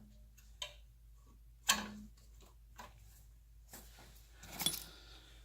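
A few scattered light clicks and knocks from a fuel filter fitting and hand tools being handled, the sharpest about two seconds in and a small cluster near the end.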